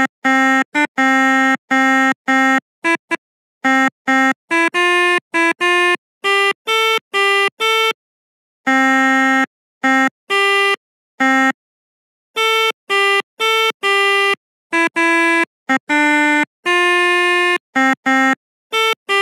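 Melodica (pianika) playing the Indonesian "telolet" bus-horn tune: reedy held notes, some sounded two at a time, in short bursts. Each burst cuts off abruptly into dead silence before the next.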